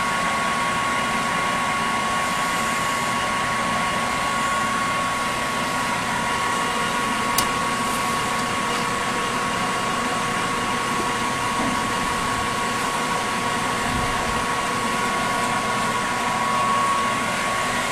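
ENCO 14" x 40" gear-head engine lathe running steadily in reverse under its 3 hp three-phase motor: an even mechanical whir with a steady whine. A single brief click about seven seconds in.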